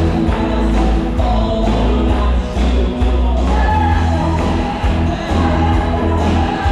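Loud show music with heavy bass and singing, played through the venue's sound system.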